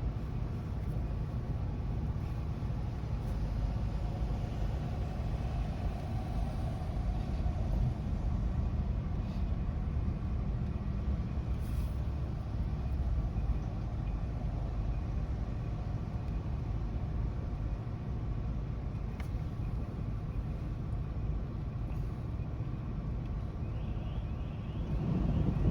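Steady low outdoor rumble of thunderstorm ambience, with a few faint ticks. A much louder low rumble swells up near the end.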